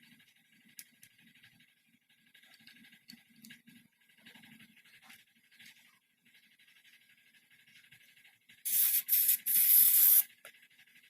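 Three short, loud bursts of hissing, close together, near the end, over faint small handling noises.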